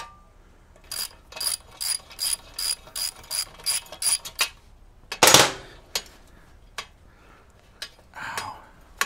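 Ratchet wrench clicking as it loosens the front fender's locking nut on a Honda CL350 fork: about ten sharp pawl clicks, close to three a second. A loud clatter follows about five seconds in.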